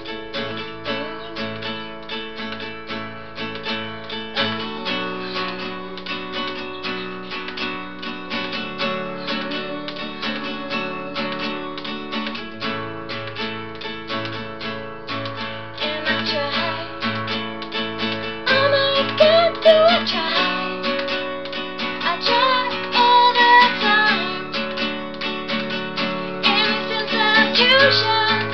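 Acoustic guitar strummed in steady chords, with a woman's voice singing over it from about halfway through.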